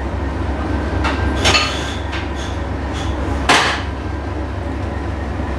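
Metal clanks from a mechanical signal box lever frame as the levers are pulled over, with a louder clank about a second and a half in and another about three and a half seconds in, and lighter clicks between. A steady low hum runs underneath.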